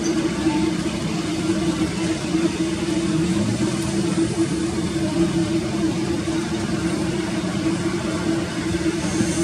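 Jet engines of a Boeing 787 Dreamliner running steadily at low power while the airliner rolls along the runway, a constant hum with one strong steady tone and no spool-up.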